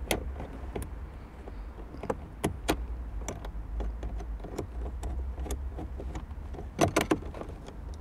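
A screwdriver turning a screw out of a Mitsubishi 3000GT's plastic dashboard: scattered small clicks and scrapes of metal on plastic, with a louder cluster of clicks about seven seconds in, over a steady low rumble.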